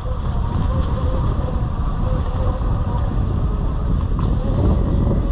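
Wind buffeting the microphone while riding a Sur Ron electric dirt bike along a dirt trail, with the electric motor's faint whine wavering in pitch underneath.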